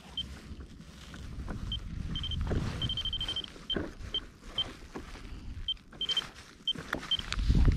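Short, high electronic beeps, sometimes single and sometimes in quick runs, repeating irregularly over low wind rumble and the rustle and clicks of gloved hands unhooking a small fish.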